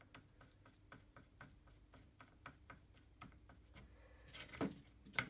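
Paintbrush stirring paint in a palette well, clicking lightly against the palette about four or five times a second. A louder scrape and a sharp knock near the end.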